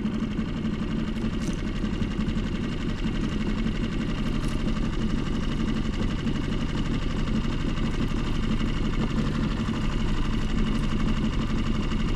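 An engine running steadily at an even speed, a constant mechanical hum.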